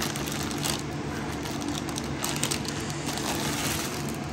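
Plastic poly mailer and clear plastic bag crinkling in short, irregular bursts as they are handled and pulled apart, over a steady low hum.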